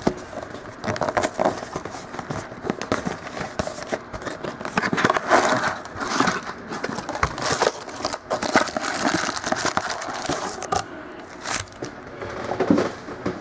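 2015 Contenders football card packs being opened by hand: foil wrappers crinkling and tearing, with cardboard and cards rustling and clicking in quick, irregular bursts.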